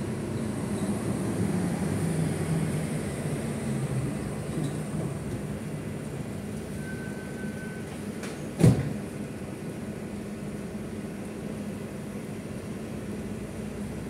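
Steady rumble of a vehicle engine running nearby, swelling over the first few seconds and then settling. A single sharp knock about nine seconds in.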